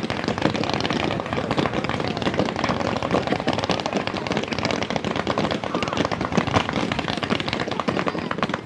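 Fireworks going off in quick succession: a dense, unbroken stream of bangs and crackles.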